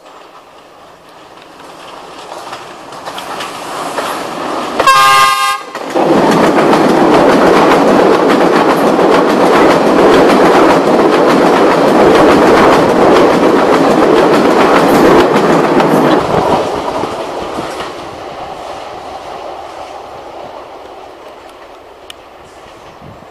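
Class S14 diesel multiple unit express train approaching, sounding one short horn blast about five seconds in. It then runs past close by, loud for about ten seconds, before fading away.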